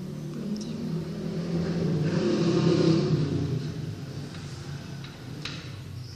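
A motor vehicle engine passes by, growing louder to a peak about three seconds in and then fading away.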